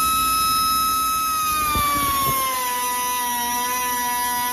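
LIGHTWEIGHT brand mini air die grinder with a cutoff wheel running at full speed: a high whine over a steady air hiss. The pitch sags a little about two seconds in and stays lower as the wheel cuts into thin sheet metal under load.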